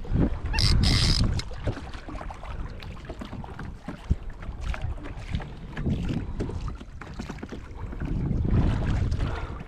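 Wind buffeting the microphone in gusts over open ocean, with the faint wash of water around a kayak.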